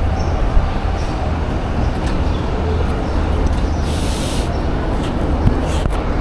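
Loaded metal flatbed cart rolling across rough concrete: a steady rumble and rattle from its casters and wire frame, with a brief hiss about four seconds in.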